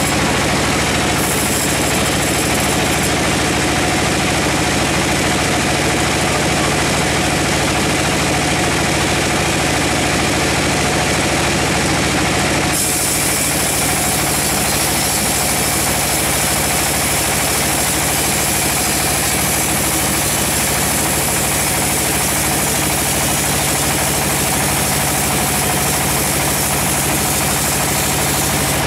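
Band sawmill running steadily as its blade saws through a teak log, a constant machine hum under an even, hissing cutting noise. The sound changes abruptly about halfway through.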